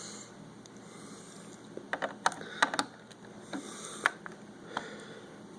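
Several light, sharp clicks and taps of plastic Lego pieces being handled, bunched about two seconds in, with a couple more later, over quiet room tone and a soft breath.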